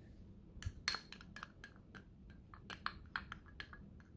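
A quick irregular run of light clicks and taps: a wooden spoon knocking and scraping against a small glass dish as thick sauce is scraped out into a ceramic bowl.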